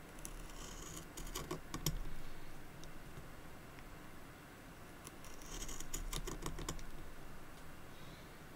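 A knife shaving wood from a pencil by hand: a quick run of short, crisp scraping cuts just after the start, and another around five to seven seconds in.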